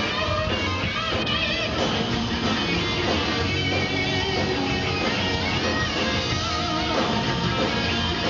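Live hard-rock band playing loud, with electric guitar to the fore.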